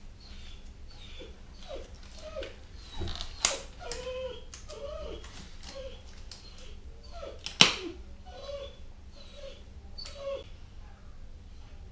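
A restrained Staffordshire Terrier cross whimpering in short, falling whines, over and over. A few sharp snaps come as disposable gloves are pulled on, the loudest a little past halfway.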